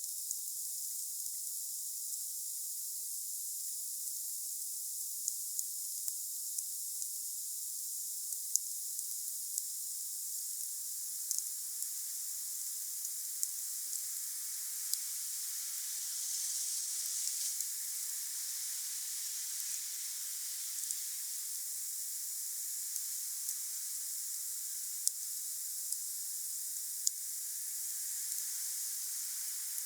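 Wood fire burning, with a steady high hiss and scattered sharp crackling pops. The hiss swells briefly a little past halfway.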